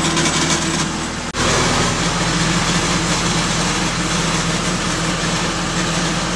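Lincoln SAM 400 welder's four-cylinder Perkins diesel engine running steadily, with a brief break about a second in before the steady running resumes.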